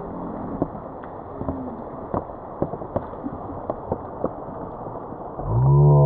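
A steady hiss with scattered sharp ticks, then about five seconds in a loud motor-like drone swells up, its pitch falling slightly.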